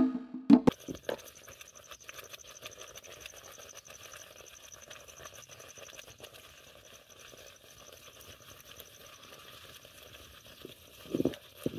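Faint cooking sounds of maize flour being poured into a pan of boiling water and worked in with a wooden spoon for ugali: soft scraping and small clicks over a steady high whine, then a few dull knocks of the spoon near the end.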